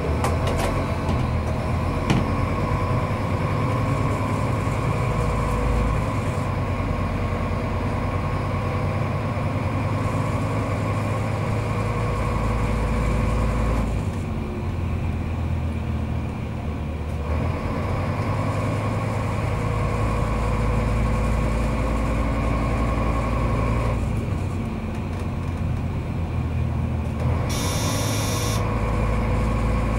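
Diesel multiple unit heard from its cab while running through station tracks: steady engine rumble and running noise with a steady whine, the engine easing off twice for a few seconds. A brief high-pitched sound near the end.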